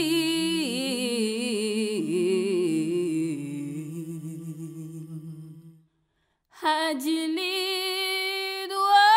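Wordless vocal music: a voice humming long held notes with a slight waver. It fades out about six seconds in, and after a brief silence a new long hummed note begins.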